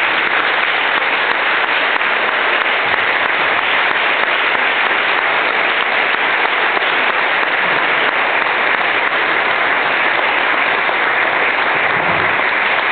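Audience applauding at the end of a speech: dense, steady clapping.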